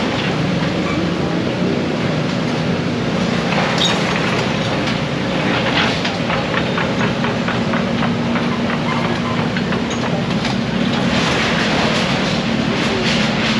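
A heavy engine running steadily with a low hum, with scattered clanks and a quick even run of clicking about six to eight seconds in.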